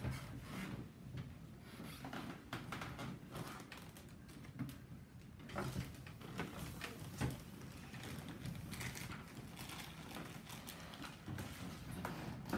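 Scattered light taps, clicks and rustles of children writing and drawing with pencils on paper at a table.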